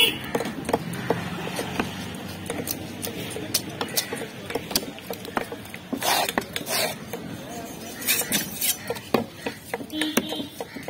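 Fish cleaver chopping fish into pieces on a wooden log chopping block: irregular sharp knocks of the blade striking through into the wood.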